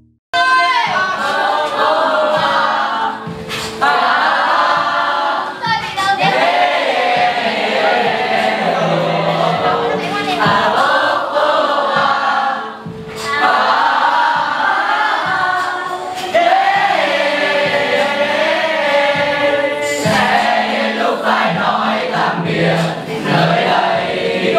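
A song sung by a group of voices together over a backing track, starting suddenly after a moment of silence.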